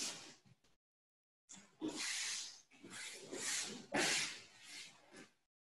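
Several short hissing, swishing bursts, about a second apart, from a person moving through solo bokken (wooden sword) cuts and footwork on aikido mats. The sound drops out completely for a moment a little under a second in.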